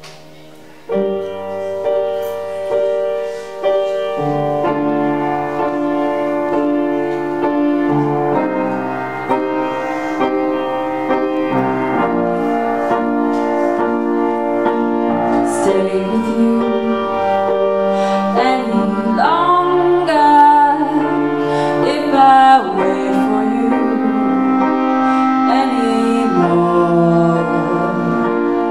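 Upright piano and clarinet playing an instrumental passage of a slow jazz-blues song. Piano chords come in about a second in, and the clarinet takes a melody with sliding, bent notes from about halfway through.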